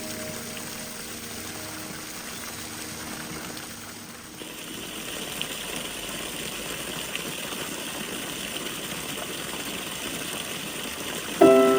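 Steady rush of running spring water, which turns brighter and hissier about four seconds in. Piano music comes in just at the end.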